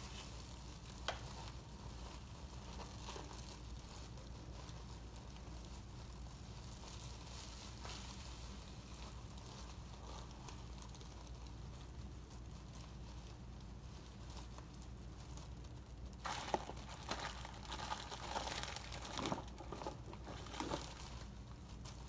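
Plastic oven bag crinkling as its neck is gathered, twisted and tied shut, faint at first, then louder and busier over the last several seconds.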